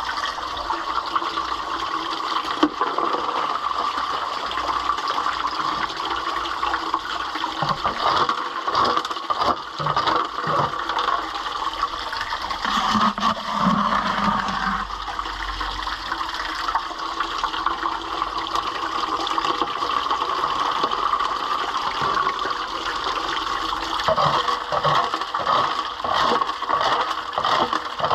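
Steady rush of running water, with scattered light knocks about eight seconds in and again near the end.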